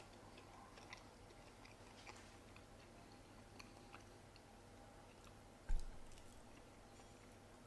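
A person chewing a mouthful of Gardein mandarin orange chicken, faint and soft with small scattered clicks; the breaded coating is not crispy. A short dull thump sounds a little before the end.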